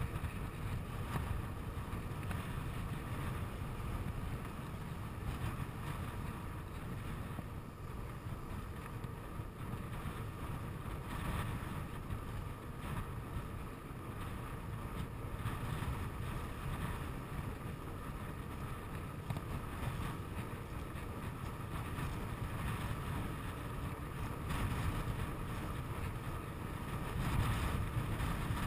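Steady wind noise buffeting the microphone of a handlebar-mounted camera, over the low rumble of a bicycle rolling along an asphalt road.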